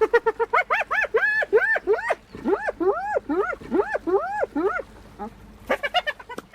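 Spotted hyena giggling: a fast run of short, high yelping notes, each rising then falling in pitch. The notes slow after about two seconds and stop about five seconds in, with a short burst near the end.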